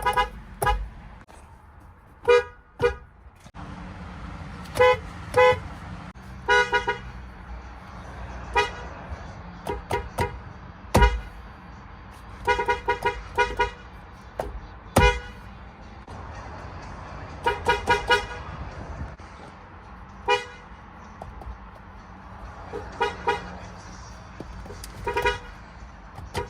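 Acura car horns honking in short taps and quick double or triple beeps, many times over with pauses between. Twice, a sharp thump cuts in.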